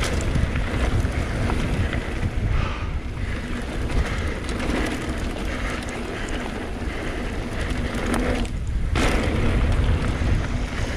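Mountain bike riding down a dirt trail: wind buffeting the microphone over the rumble and rattle of knobby tyres and the bike on the dirt. Briefly lighter about eight and a half seconds in, then a clatter.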